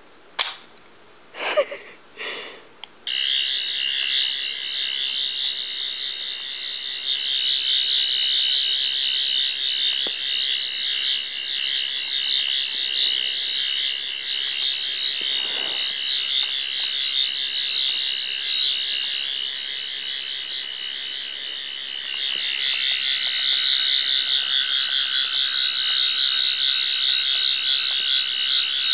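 Toy 11th Doctor sonic screwdriver's electronic sound effect: a few short chirps, then from about three seconds in a continuous high, fast warble while its button is held down and its tip is lit.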